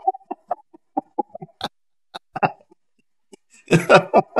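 A man chuckling in short, scattered bursts of laughter, breaking off briefly and picking up again, more densely, near the end.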